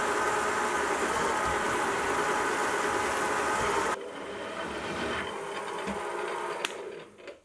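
Sieg milling machine running as an 8 mm drill bores through mild steel. About four seconds in the sound drops sharply to a quieter, steady running as a countersink chamfers the edge of the hole, then dies away near the end.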